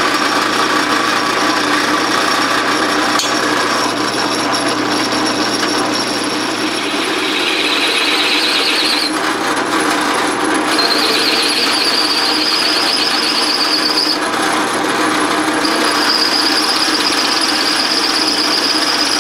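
Drill press running as a small carbide bit pilot-drills a hole in a cast iron valve body casting. The bit squeals high and wavering as it cuts, in three stretches starting about 7, 11 and 16 seconds in.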